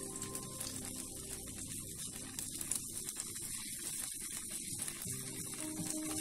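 Omelette frying in oil in a nonstick pan, sizzling with a steady fine crackle and scattered light pops. Soft background music comes back in near the end.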